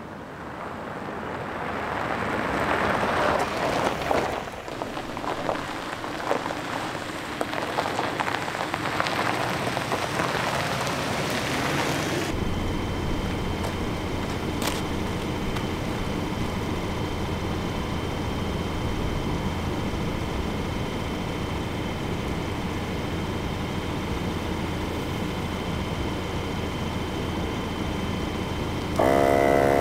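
A Ford Ranger pickup approaches on a gravel road, its tyres crunching on the gravel and growing louder as it nears. About twelve seconds in the sound cuts to a portable 12-volt VIAIR 88P air compressor humming steadily as it reinflates an aired-down tyre.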